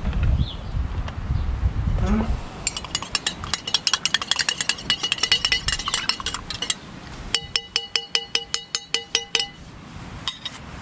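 A spoon stirring tea in a cup, clinking quickly against the side, then a second run of slower, evenly spaced clinks that ring with a clear tone.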